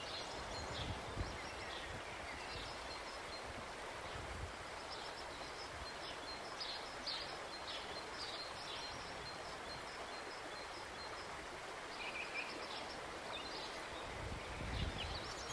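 Outdoor ambience: small birds chirping in short, repeated bursts of high notes over a steady background hiss, with a few low bumps near the end.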